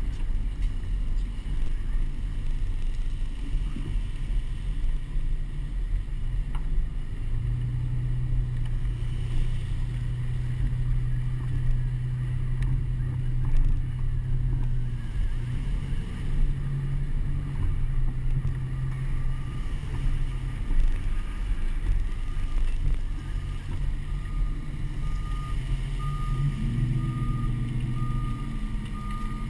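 A car engine running at a steady low hum with road and wind rumble as the car rolls slowly along the street. Near the end a vehicle's reversing alarm beeps repeatedly.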